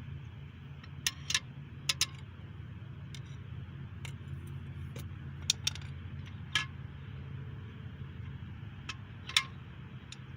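Metal tools or engine parts being handled: light metallic clinks in small clusters, about eight in all, over a steady low hum.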